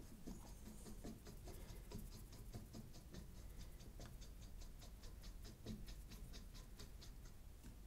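Faint, even ticking, about five ticks a second, with a few soft knocks as a router plane is handled on a wooden board.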